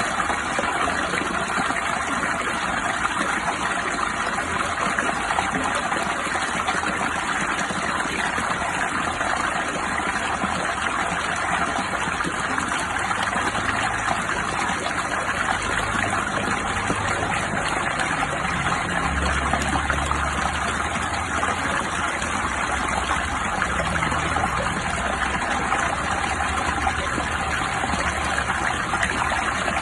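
Steady, even rush of water, with no breaks or separate events.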